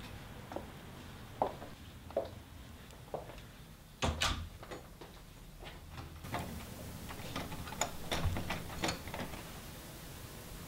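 A house door shuts with a sharp knock about four seconds in. Then comes a run of small metallic clicks and rattles as the doorknob and its lock are turned and tried over and over.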